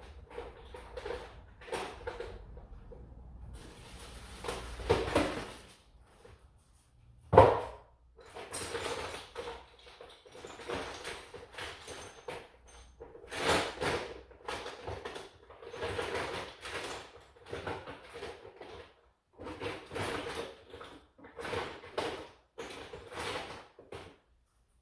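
Rummaging and handling of hard objects, with irregular knocks and rustles and one sharp loud thump about seven seconds in.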